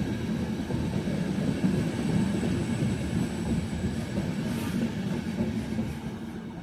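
Intercity passenger train running past on the track with a steady rumble, which fades away near the end.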